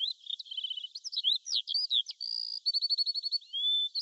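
Birds chirping: a steady string of high, varied whistled chirps and quick sweeps, with two fast trills of rapidly repeated notes.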